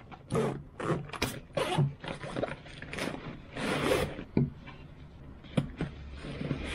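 Rustling and scraping of a padded fabric camera bag being opened and handled, in short irregular bursts, with a few sharp knocks as things are moved in and out of it.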